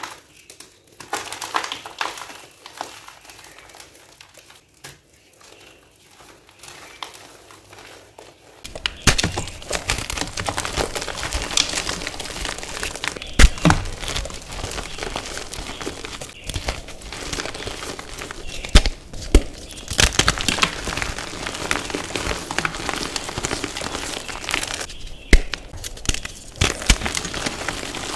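Hands crumbling and squeezing blocks of dyed, reformed gym chalk: dry crunching and crackling. It is sparse and quieter for the first several seconds, then a dense, steady crunch with sharp cracks from about nine seconds in.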